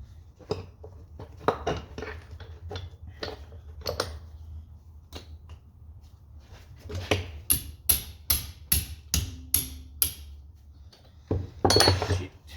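Metal tools knocking and tapping on steel tractor parts by hand. Partway through comes a run of about eight quick, even, ringing taps, and near the end a louder clatter.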